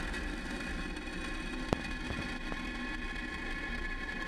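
Steady rushing noise of a Falcon 9 first stage climbing, its nine Merlin engines firing, heard through the launch broadcast audio. One sharp click comes a little under two seconds in.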